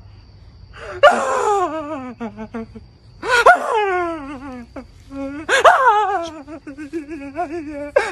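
A man crying in exaggerated wails: three long, wavering cries, each falling in pitch, a couple of seconds apart, with another starting right at the end.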